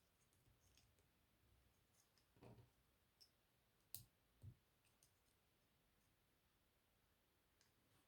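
Faint, scattered clicks and taps of plastic LEGO pieces being handled and pressed together, a few sharp ones near the middle.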